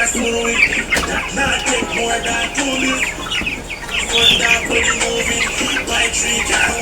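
A large flock of chickens clucking and calling all at once, a dense, continuous chatter of many overlapping short calls, with music playing underneath.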